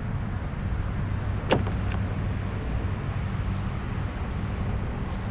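Steady low hum of a vehicle running, with one sharp click about a second and a half in and a couple of brief rustles later as the ratchet set is handled.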